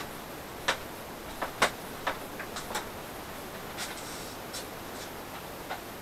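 Light footsteps and scattered clicks and taps of small items being handled, sparse and unevenly spaced, over a faint steady hiss.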